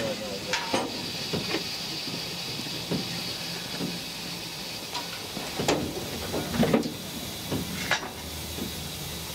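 Narrow-gauge steam locomotive hissing steam steadily, with a few scattered clanks and knocks over the hiss.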